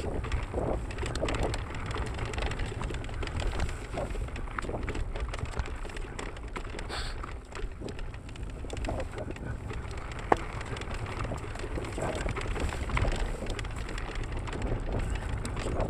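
Mountain bike rolling fast down rocky dirt singletrack: tyres crunching over dirt and stones with constant small rattles and clicks from the bike, over a low rumble of wind on the microphone, and one sharp knock about ten seconds in.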